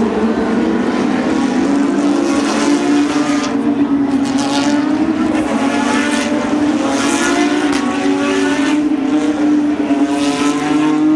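Racing cars' engines running at high revs on the circuit, a steady drone with several rising engine notes as cars accelerate past.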